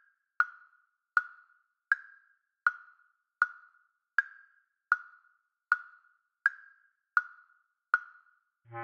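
Notation software's playback metronome, a wood-block click, ticking steadily about four times every three seconds through a multi-measure rest. Right at the end a soft, low synthesized bass clarinet note comes in.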